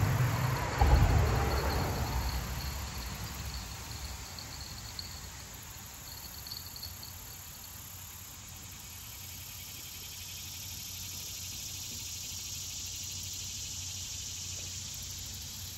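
Insects trilling steadily in the background as a faint, pulsing high tone. Over the first few seconds a low rumble, with a thump about a second in, fades away.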